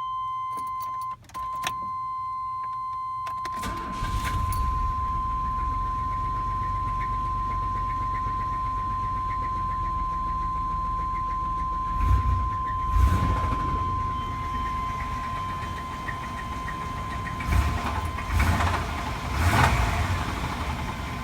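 Chevrolet 4.3L Vortec V6 starting after a few clicks and settling into a run, then revved in short blips several times in the second half, with a severe rod knock. A steady high-pitched tone sounds throughout.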